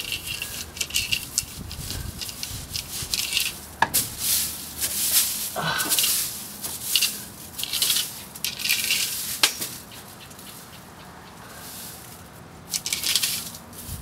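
Soil and debris being slowly dug at and scraped, heard as intermittent rustling and scratching with two sharp clicks, about four and nine and a half seconds in. It goes quieter for a couple of seconds near the end.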